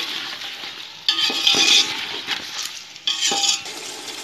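A spatula stirring and scraping mutton pieces around a metal pot, in two bouts about a second in and about three seconds in, with light clinks of the spatula against the pot.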